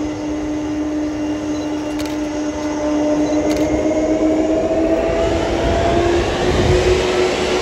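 Boeing 747-400F cargo jet's four engines running with a steady whine that begins to climb in pitch and grow louder about halfway through, as thrust is brought up for the takeoff roll.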